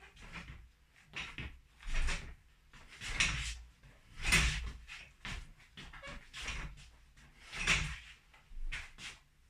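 Boxing gloves landing in a series of dull hits, roughly one a second, some harder than others.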